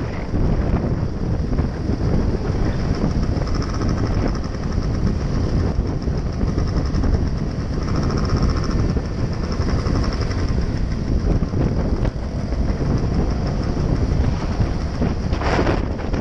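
Wind buffeting the microphone over the engine and road noise of a Gilera scooter ridden at road speed, with a steady high whine running underneath. A brief louder sound cuts in about fifteen seconds in.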